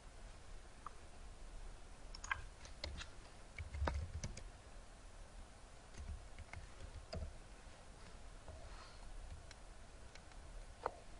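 Faint keystrokes on a computer keyboard: scattered clicks in short irregular runs with pauses between, busiest a few seconds in, as a line of code is typed.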